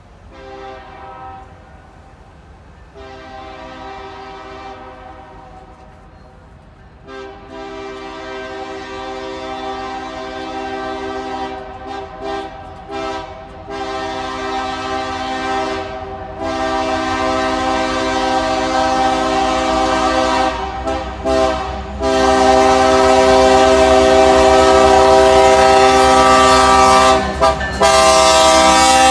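A train horn blown in a long series of blasts, some long and some short toots, with several notes sounding together, growing louder as the train approaches. The train's low rumble builds beneath the horn in the second half.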